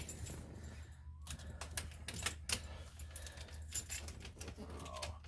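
Keys jangling on a key ring, with light clicks, as the key is turned in the ignition and the new ignition switch is pushed into the steering column to seat it.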